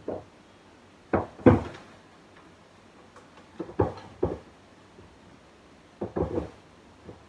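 Knocks and bumps of a small painting panel being handled and set against a wall, in short clusters: a couple about a second in, several near four seconds, and a pair around six seconds.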